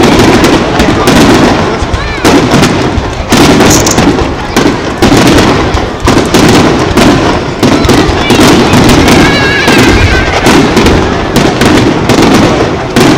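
Aerial firework shells bursting in a rapid, continuous barrage of loud bangs.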